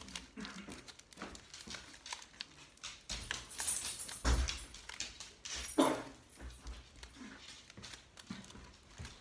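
Aluminium foil being scrunched and pinched by hand: irregular crinkling and crackling, louder a few seconds in and again about six seconds in, with one dull knock just after four seconds.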